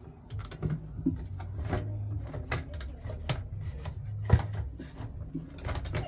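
Scattered clicks and knocks of a metal hand tool and hands working against the washing machine's metal cabinet and tub rim, with one louder knock about four seconds in, over a low steady hum.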